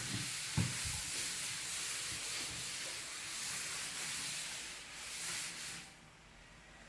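Tap water running in a steady hiss, with a short knock just after it starts; the water stops about six seconds in.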